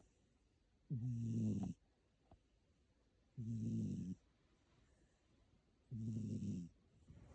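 Domestic orange tabby cat snoring in its sleep: three snores about two and a half seconds apart, each under a second long, a low buzzing drone with a breathy hiss over it.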